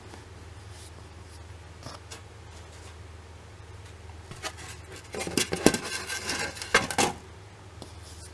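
Handling noise around a compact digital camera on a table: a few faint taps, then a busy flurry of clicks, knocks and rustles from about four to seven seconds in.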